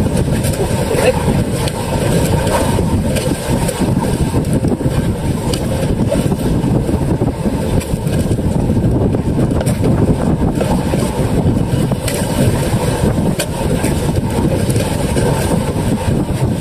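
Motorized outrigger boat (bangka) running steadily underway on choppy sea, its engine noise mixed with wind and water rushing along the hull.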